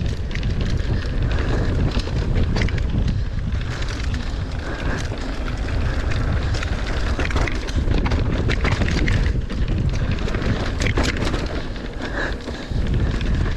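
Heavy wind noise on the microphone of a mountain bike riding fast down a trail. The bike and tyres rattle and clatter over rough ground, giving many sharp clicks and knocks.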